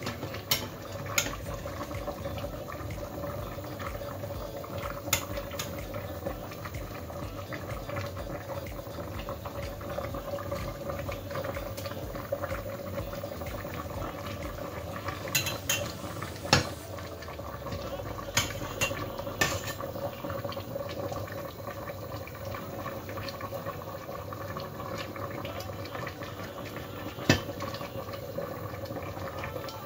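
A pot boiling on the stove, a steady bubbling hiss, with scattered sharp clinks of utensils against dishes, the loudest near the end.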